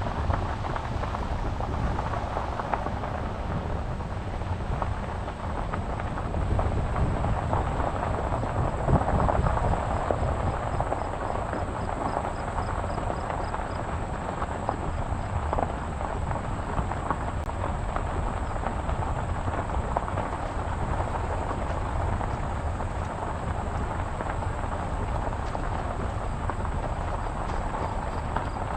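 Steady rumbling noise of wind buffeting the microphone over harvest machinery running.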